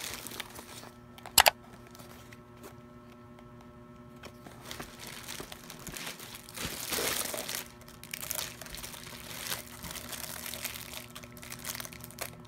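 Plastic packaging crinkling and rustling as a black poly shipping mailer is handled and opened and the plastic-wrapped items are pulled out. A single sharp click about a second and a half in.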